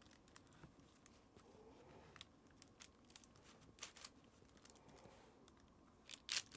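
Chef's knife slicing down through a slab of brownie with a crisp, glossy top, giving faint crackling and crinkling from the crust and the parchment paper beneath. A few louder crisp clicks come about four seconds in and again near the end.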